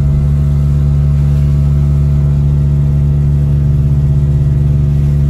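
Steady drone of a car's engine and tyres on a wet road, heard from inside the cabin with a window rolled down; the hum holds an even pitch without revving.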